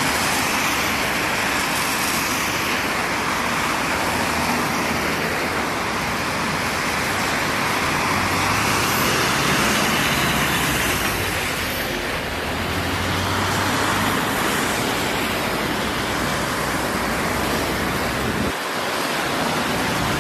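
Street traffic on wet asphalt: a steady hiss of tyres on the wet road, with a bus engine's low hum coming up in the middle.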